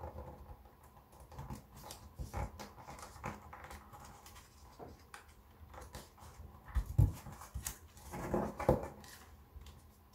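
Sheet of origami paper rustling and crinkling as it is folded and creased by hand, in many short crackles. Two louder thumps come about seven seconds in and again a little after eight seconds.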